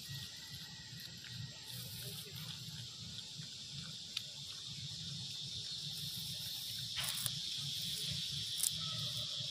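Insects droning steadily in a high, even buzz that grows louder from about halfway, with a few sharp clicks, the plainest one about seven seconds in.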